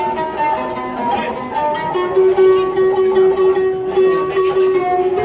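Qanun music: a melody picked on the strings of a trapezoidal Middle Eastern zither, with quick repeated tremolo strokes that sustain the notes.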